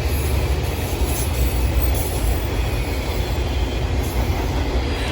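Norfolk Southern freight train's cars rolling past, a steady loud rumble of wheels on rail.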